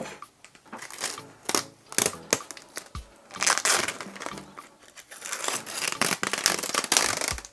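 Packaging being handled and torn open: irregular crinkling, rustling and tearing, busiest in the second half.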